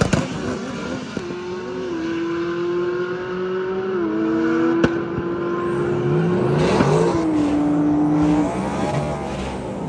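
Race car engine at a drag strip holding one steady high note that steps slightly in pitch a few times. It drops lower about seven and a half seconds in and stops a second later. Around the same time a vehicle sweeps past.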